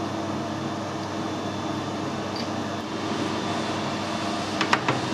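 Metal lathe running steadily: an even motor-and-gearing hum, with a few short clicks near the end.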